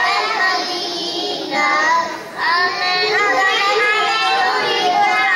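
A group of young girls singing a nasheed together, with a brief pause between phrases a little over two seconds in.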